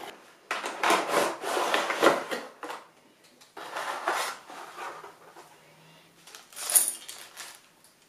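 Cardboard retail box and plastic packaging rubbing and rustling as a CPU tower cooler is unboxed: the cooler is slid out of its carton and lifted from its moulded plastic tray. The noise comes in three bursts with small clicks, and the first burst is the longest.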